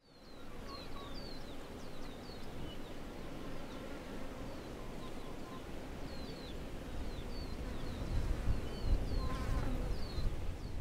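Open-air countryside ambience: insects buzzing steadily, with many short high chirps scattered throughout and a low rumble that swells over the last few seconds.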